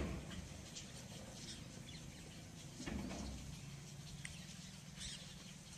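Scattered faint bird chirps over a steady low background rumble, with a short, muffled, louder sound about three seconds in.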